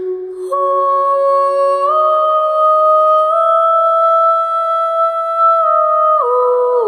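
Slow, ethereal music: a wordless melody of long held notes that steps up in pitch about two seconds in and again a little later, then drops near the end.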